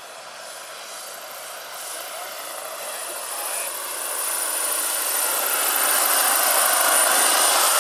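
A 1/6-scale K-Max model helicopter with twin rotors, powered by a Phal Power GP70 turbine, flies toward the listener. The turbine's high steady whine sits over a broad rushing noise, and both grow steadily louder as it nears.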